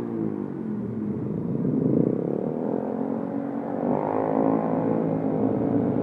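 Several motorcycle engines fitted with aftermarket racing exhausts running close by in slow traffic, their pitch rising as they rev up about two seconds in and again about four seconds in.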